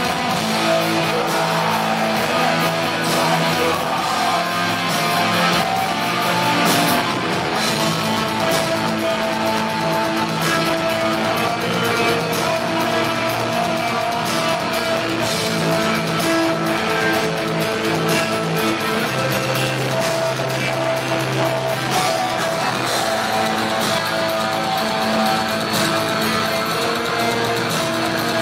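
Heavy metal band playing live: distorted electric guitars holding sustained notes over drums and cymbals.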